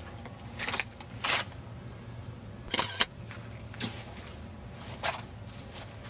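Footsteps on grass and dry leaves: a handful of short, irregular scuffs, over a low steady hum.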